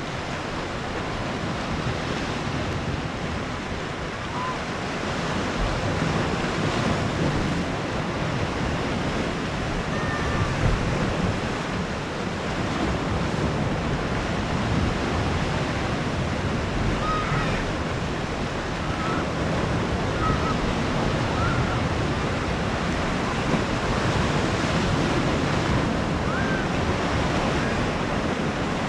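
Sea waves washing onto a small cove beach, a steady surf with gentle swells in loudness, mixed with wind buffeting the microphone.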